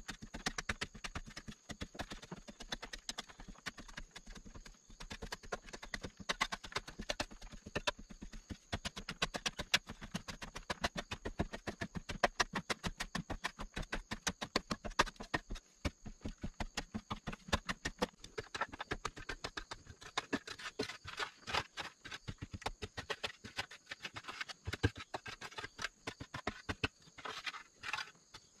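A hammer striking a chisel into a hard-packed earth wall in a quick, steady series of knocks.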